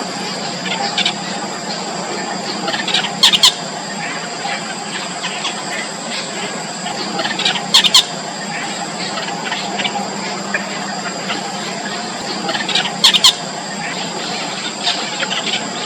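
Four-day-old nestlings peeping and squealing, a busy high-pitched chatter with two steady high tones under it. Three times, about five seconds apart, comes a loud, sharp burst of two or three quick strokes.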